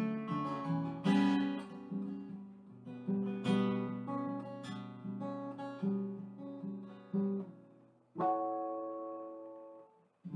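Acoustic guitar played by hand: picked notes and light strums in a steady rhythm, then a last chord struck about eight seconds in and left to ring out and fade away.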